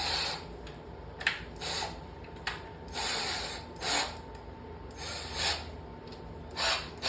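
A series of short scraping and rustling handling noises, several in a row at irregular intervals, with no drill motor running.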